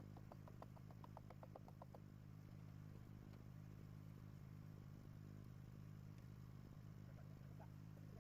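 Near silence: a faint steady low hum, with a quick run of about a dozen faint high chirps in the first two seconds.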